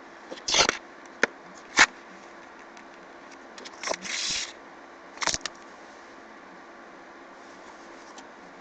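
Pages of an art book being turned and handled: a few short paper swishes and taps, the loudest about half a second in and near two seconds, with a longer rustle around four seconds, over a steady low hiss.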